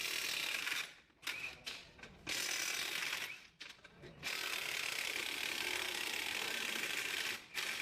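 Ratchet wrench being cranked rapidly in several runs of a few seconds each, its clicks blurring into a steady rasp, while bolts are turned on a tractor axle assembly.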